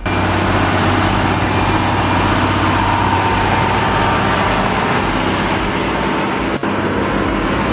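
Semi-truck's diesel engine running steadily, with a low, even note and a brief break about six and a half seconds in.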